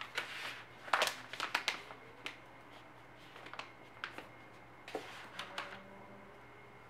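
Small cardboard accessory boxes and plastic-window case packaging handled and shuffled by hand: a run of light taps, clicks and rustles, busiest about a second in and again around the fifth second.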